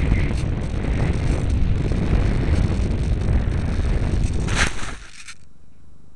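Airflow rushing over the microphone of a Graupner Discus model glider's onboard camera as it glides in low to land. The fuselage then slides through the grass with a rustling scrape that stops suddenly about five seconds in as the glider comes to rest.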